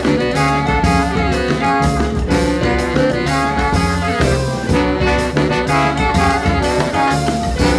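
A band playing jazz with horns over drums, the horns holding notes over a steady beat.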